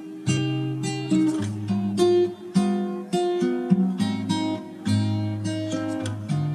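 Acoustic guitar background music, a run of plucked notes and chords with a new attack every second or so.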